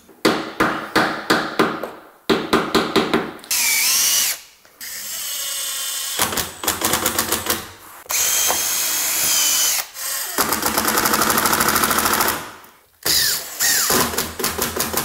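Cordless drill and impact driver working wood in turns: a string of short trigger bursts, then longer steady runs, one spinning up with a rising whine about four seconds in. From about ten seconds in, the rapid ticking of an impact driver hammering a screw home into the timber base rail, followed by more short bursts.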